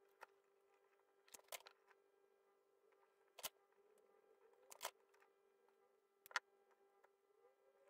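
Near silence with a faint steady hum and about five small, sharp clicks and taps from handling a soldering iron and wires.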